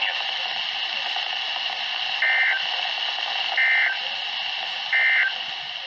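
Three short EAS end-of-message data bursts, the two-pitched warbling SAME digital tones, about 1.4 s apart, that mark the end of a severe thunderstorm warning broadcast. They sound over steady radio static hiss with a faint constant whine.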